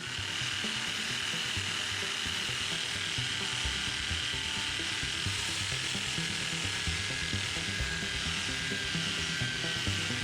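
Rotary power tool running steadily against the steel frame, abrading it back to bare metal. It makes a steady high-pitched whine over a continuous rasping hiss.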